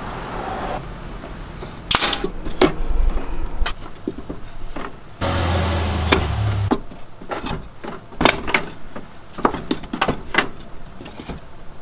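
Wooden beehive frames knocking and clacking as they are handled and pushed together inside a wooden hive body: a series of sharp, separate wooden knocks.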